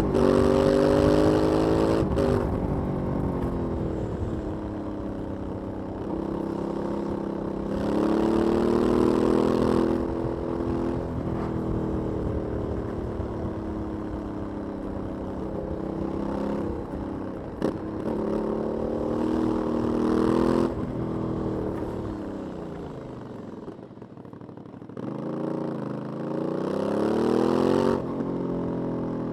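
An Aprilia 900 twin-cylinder motorcycle engine on its stock exhaust, being ridden. The engine pitch climbs as the throttle opens and drops back sharply, again and again, falling toward idle about two-thirds of the way through before it pulls up again.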